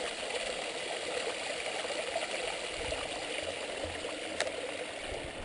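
Small mountain stream splashing steadily down a rocky step in a little cascade, with a single faint click about four seconds in.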